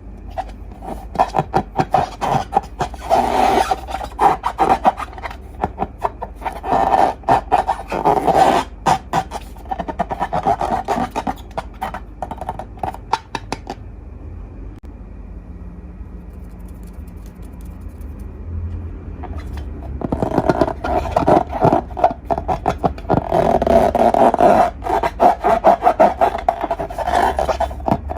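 Slime being squished and kneaded by hand: dense runs of crackles and small pops, in two long bouts with a pause of about five seconds between them.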